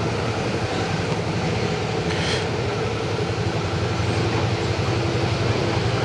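Suzuki V-Strom 650's V-twin engine running at low revs as the motorcycle rolls slowly inside an enclosed rail-shuttle carriage, with a steady hum and a brief hiss about two seconds in.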